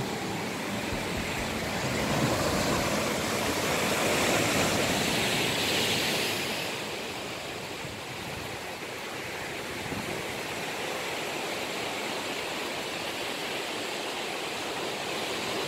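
Sea surf washing against a rocky shore, a steady rushing wash that swells louder a couple of seconds in and eases off again after about six seconds.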